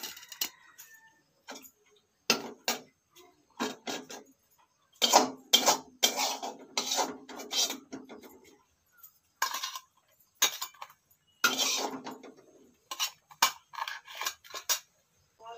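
Steel kitchen utensils clattering: a ladle or spatula knocking and scraping against steel pots and woks in irregular spells, with a longer stretch of rattling and scraping about five seconds in and another near twelve seconds.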